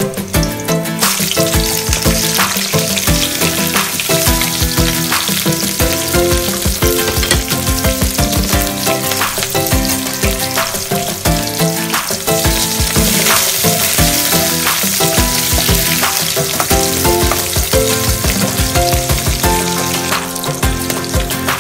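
Sliced red onions sizzling and crackling as they fry in hot oil in an aluminium wok; the sizzle starts about a second in. Background music plays under it.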